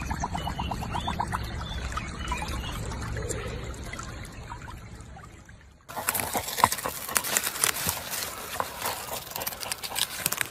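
Water trickling around a husky lying in a shallow stream, with quick regular lapping or splashing near the start. About six seconds in, a different scene: a dog tearing at leafy vegetables and soil with its mouth, a dense run of crisp crunches and snaps.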